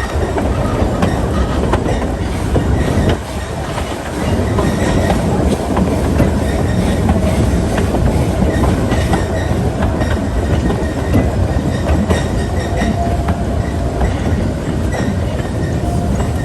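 A narrow-gauge passenger coach riding the rails behind a steam locomotive: a steady rumble with wheel clatter on the track, and a faint wheel squeal in the last few seconds.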